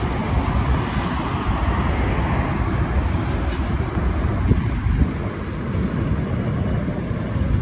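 Freight train of grain hopper wagons rolling past on the rails, a steady low rumble.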